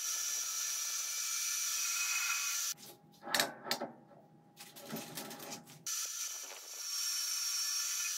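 Metal lathe taking a facing cut across a large metal disc with a carbide insert: a steady high hiss with a thin whistle. About three seconds in the cutting noise stops for about three seconds, replaced by a few clicks and knocks as a hand works the lathe's controls, then the cutting hiss and whistle resume.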